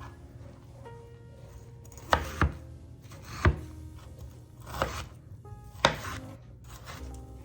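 Kitchen knife cutting raw chicken breast into chunks on a cutting board: about five sharp knocks of the blade hitting the board, irregularly spaced.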